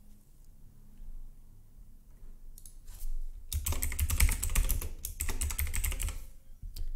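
Typing on a computer keyboard: after a quiet start, a fast, steady run of keystrokes begins about halfway through and stops shortly before the end.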